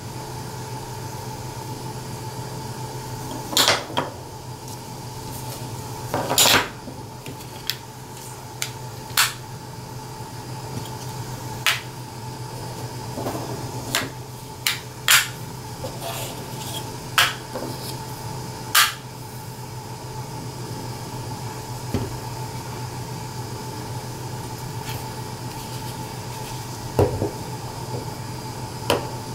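Hard plastic clacks and clicks, a dozen or so at uneven intervals, as clear UV-cured resin panels set with neodymium magnets are handled and snapped together edge to edge. A steady low hum runs underneath.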